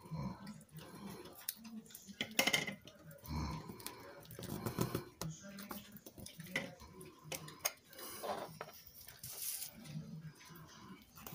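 Faint paper handling: rustling and scattered light taps and clicks as strips of patterned cardstock paper are pressed and smoothed down onto a card base.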